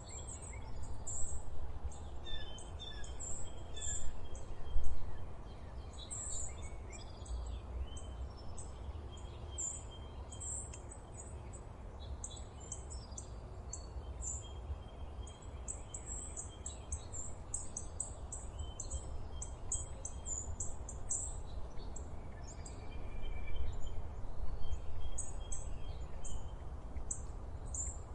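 Several small birds singing in a forest, with rapid, very high chirps throughout and some clearer whistled notes among them, over a steady low rumble. The chirping is busiest near the start and again near the end.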